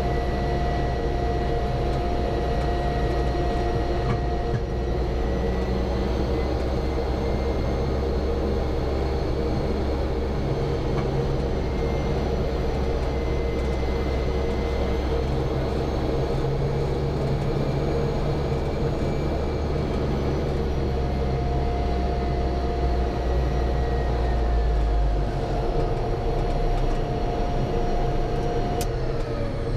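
Pratt & Whitney PT6 turboprop of a Cessna 208B Caravan running steadily at taxi power, heard inside the cockpit as a constant whine over a low rumble. Near the end a click is followed by the whine starting to drop in pitch.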